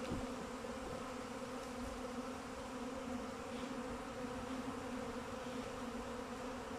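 A swarm of honeybees buzzing in the air, not yet settled and looking for a place to cluster: a steady, unbroken drone of many bees.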